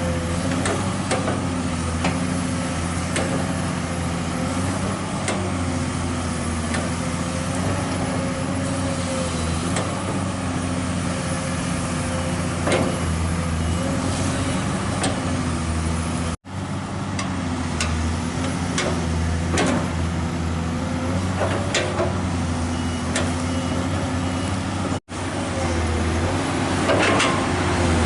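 Heavy diesel machinery running steadily, its engine note dipping and recovering every few seconds as if under load, with scattered metallic clanks and knocks. The sound cuts out for an instant twice.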